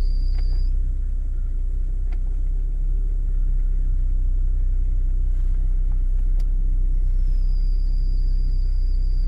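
Lada Vesta NG engine idling, with a thin high-pitched whistle from the drive belt that cuts out just under a second in and comes back about seven seconds in. The owner hears this belt whistle only in sub-zero weather and when the heated windshield is switched on.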